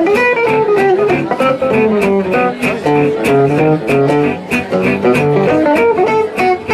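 Two acoustic gypsy-jazz (manouche) guitars playing swing: one picks a quick single-note lead melody with slides, while the other strums short, evenly spaced rhythm chords.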